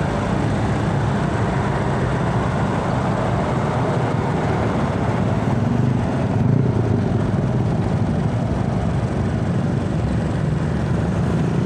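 Road traffic dominated by trucks' diesel engines running close by, a steady low rumble that grows slightly louder about six and a half seconds in.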